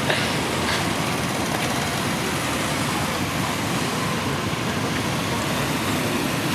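Many motorcycle engines running together as a procession of bikes rides slowly past, blending into a steady mixed engine noise with no single bike standing out.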